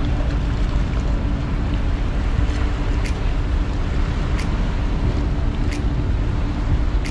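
The ro-ro ferry Seven Sisters' engines running with a steady low rumble and a constant hum as the ship moves out close by, with wind buffeting the microphone.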